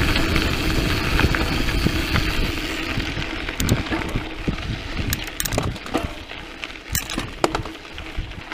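Mountain bike on a dirt trail: a steady rush of wind and tyre rumble for about three seconds, then quieter, with scattered sharp clicks and rattles from the bike.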